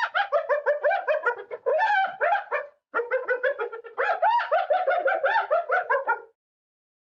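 Hyena's laughing call: rapid strings of short, yelping notes that rise and fall, in three bouts with brief breaks, stopping about six seconds in.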